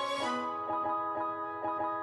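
Background music: a quick run of bright notes over held tones.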